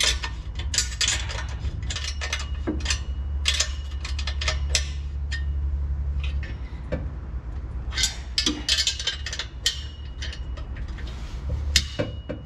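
Hand wrenches clinking and tapping against the bolts and flange of a Mazda Miata's exhaust as it is bolted back up, in irregular runs of sharp metallic clicks. A low steady hum lies underneath.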